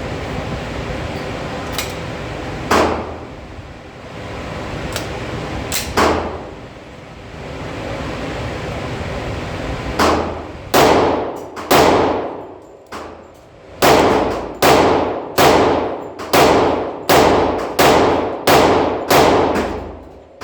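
Glock 20 10mm pistol firing in an indoor range: two single shots a few seconds apart, then a string of about eleven shots under a second apart from about halfway in, each ringing on in the range's echo.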